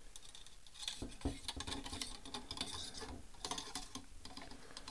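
Cleaning rod pushing a patch down the magazine tube of a Henry H001 .22 lever-action rifle: faint scraping and small clicks in a few short bursts.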